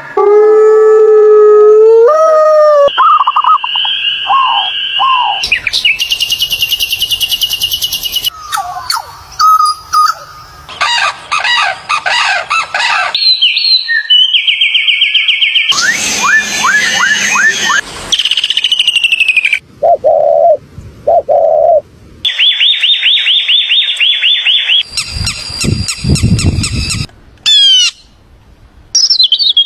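A string of different bird calls cut one after another: whistled chirps, trills and rapid repeated notes, each lasting one to three seconds before changing abruptly to another call.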